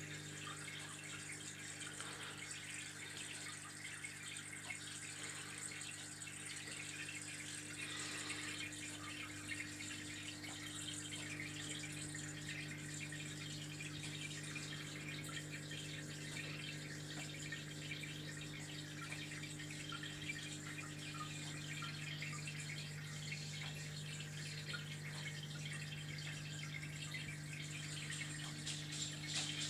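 Aquarium filter running: a steady low hum with a constant trickle of water over it.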